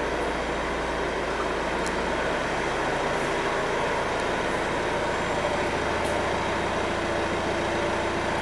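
Renault Espace's diesel engine idling steadily, heard from outside the car in an enclosed garage.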